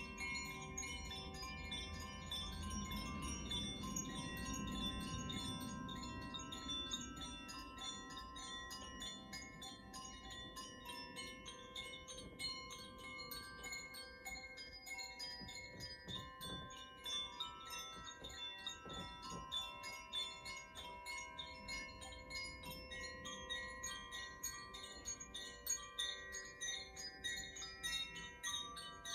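Koshi chimes rung softly and continuously, their clappers striking the tuned metal rods in a rapid shimmer over many overlapping ringing tones.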